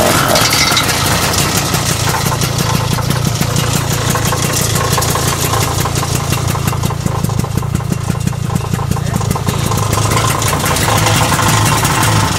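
1968 Ski-Doo Olympic snowmobile's two-stroke engine idling loudly and steadily, freshly started, with a rapid, even firing rattle.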